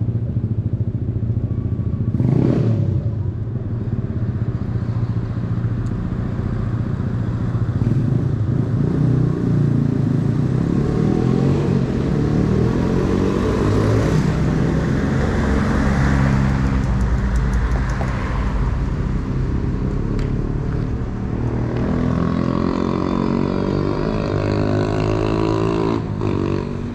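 Road traffic: motor vehicles driving past with continuous engine noise, one engine revving up with a rising pitch near the end.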